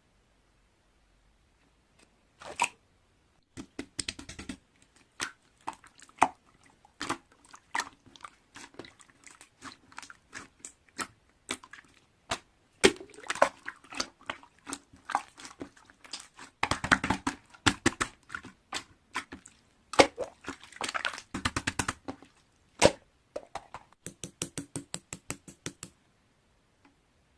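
Irregular sharp clicks and short crunching noises, ending in a quick even run of clicks, about seven a second.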